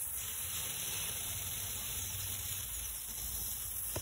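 Steady fizzing hiss of small pieces of sodium metal from a broken low pressure sodium lamp reacting with the water in a bucket.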